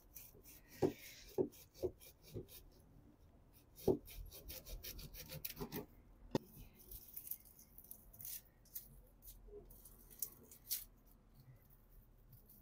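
Hands rubbing and crumbling moist compost away from a heuchera's roots: faint scattered rustles and small crackles, with one sharper click about six seconds in.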